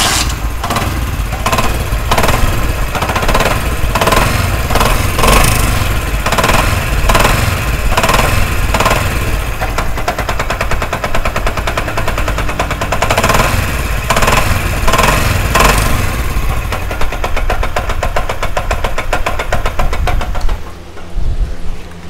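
Honda CD70's small single-cylinder four-stroke engine running with a harsh, dangerous-sounding noise that comes in uneven louder surges and drops off near the end. The noise sounds like a failed crankshaft or connecting rod, but the mechanic traces it to excessive play in the clutch assembly.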